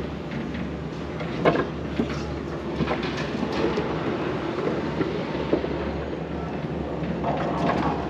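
Steady rumble of a moving ride vehicle, with a few short clacks in the first few seconds.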